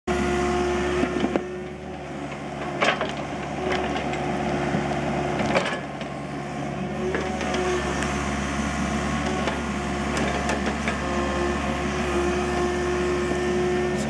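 Mini excavator running steadily as it works its arm and bucket, backfilling soil into a trench. A low engine hum carries a whine that comes and goes, with a few sharp knocks in the first six seconds.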